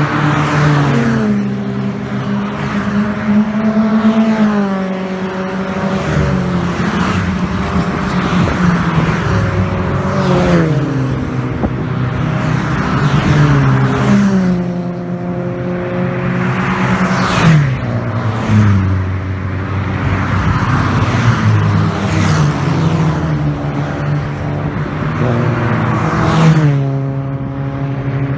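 A string of classic cars driving past one after another at speed, several engines heard at once, each engine note dropping in pitch with a rush of tyre and wind noise as it goes by. The loudest passes come a little past halfway and near the end.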